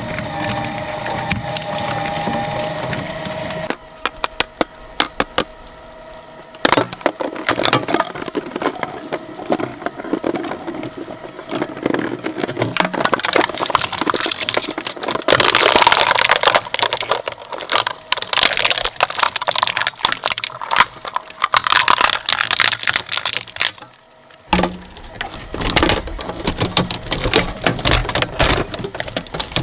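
Shredder blades breaking up toys: a dense, irregular run of cracking and crunching, heaviest toward the middle, with a brief lull near the end before the crunching picks up again.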